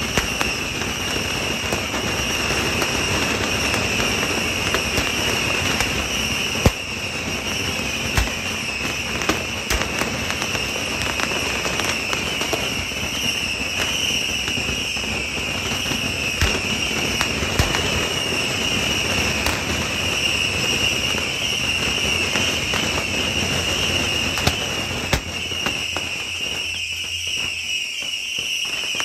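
Fireworks going off without a break: a dense crackle of many small explosions with scattered sharper bangs, the loudest about a quarter of the way in, over a steady high-pitched tone. The deep rumble thins out near the end.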